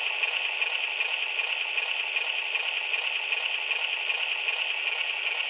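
QSI sound decoder in an HO-scale Atlas U30C model playing its diesel engine sound through a small speaker: a steady, rattly drone with no bass.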